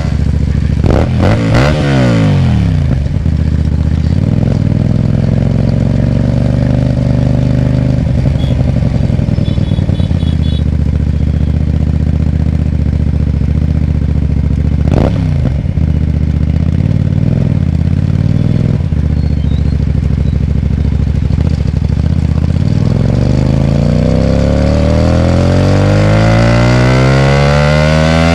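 Hyosung GT250R's 250 cc V-twin running through a loud aftermarket exhaust: the revs drop over the first few seconds, hold fairly steady through the middle, then climb steadily over the last five seconds under acceleration.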